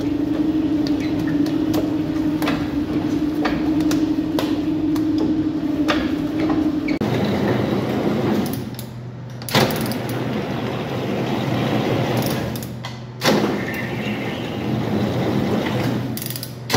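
An electric spiral dough mixer hums steadily as it kneads dough. About seven seconds in, a dough sheeter's motor and rollers take over with a lower running hum that drops away and starts again suddenly twice as the dough is rolled thin.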